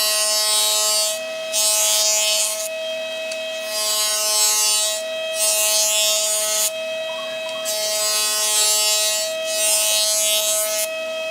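Handheld electric power tool running with a steady whine while working wood, its bit or pad grinding or sanding the surface in repeated passes that come and go every second or two.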